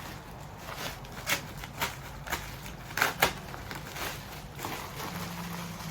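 Plastic packaging crinkling as an item is unwrapped, with about five sharp crackles in the middle.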